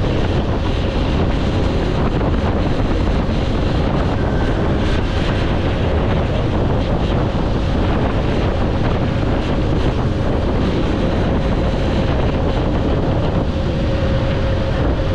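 Wind rushing over the microphone on a moving Honda CG 125 motorcycle, its single-cylinder four-stroke engine running steadily underneath.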